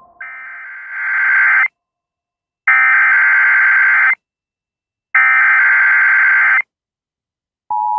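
Emergency Alert System SAME header: three bursts of shrill, warbling digital data tones, each about a second and a half long with a second's pause between them, marking the start of a new alert. Near the end the steady two-tone attention signal begins.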